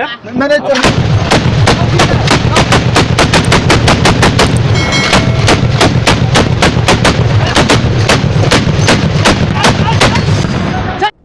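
Tripod-mounted belt-fed heavy machine gun firing one long sustained burst, about five shots a second, with a low rumble beneath. The firing starts about a second in and cuts off abruptly near the end.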